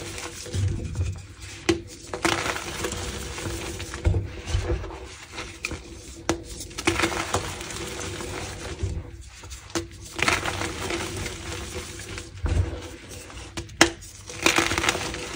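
Dry slices of gym chalk cracking and crumbling under pressure: irregular spells of crunching with sharp snaps, the sharpest near the end.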